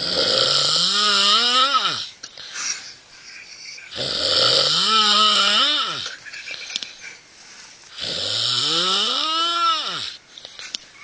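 Loud snoring: three long snores about four seconds apart. Each is a harsh rasp with a tone that rises in pitch and then drops away at the end.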